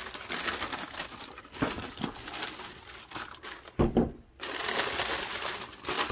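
Tissue wrapping paper in a sneaker box rustling and crinkling as hands move it about, with a brief pause and a dull thump about four seconds in.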